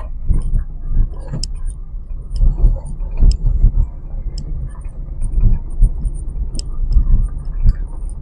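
Maruti Celerio hatchback crawling over a rocky, gravel riverbed, heard from inside the cabin. A low rumble with irregular jolts as the suspension bumps over stones, and frequent sharp ticks and knocks of loose stones striking the car.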